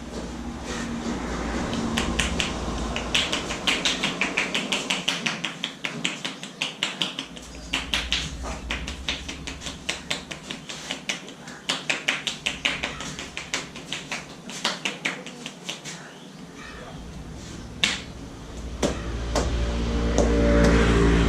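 A barber's hands striking the head in quick runs of sharp taps and slaps, several a second, during a head massage. Music comes in near the end.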